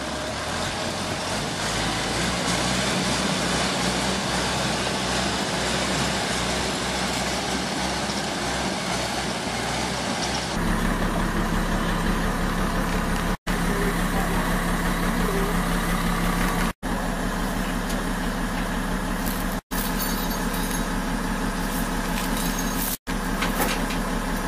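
Rushing river water mixed with engine noise as a crawler tractor tows a truck through the current. About ten seconds in this gives way to a heavy diesel engine running steadily, with the sound cutting out briefly four times.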